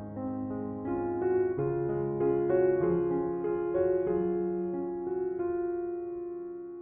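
Soft background piano music, a slow melody of single notes over held chords.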